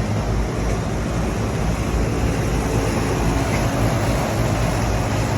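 Rooftop HVAC units running: a steady mechanical hum with fan noise.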